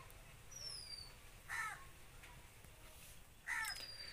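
Crow cawing faintly: two short harsh caws about two seconds apart. A thin, high, falling whistle comes before each caw.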